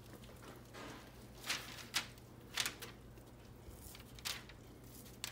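Thick sugar paste sliding out of a tilted stainless steel bowl onto parchment paper, heard as about five soft, brief rustles and scrapes. A faint steady hum lies underneath.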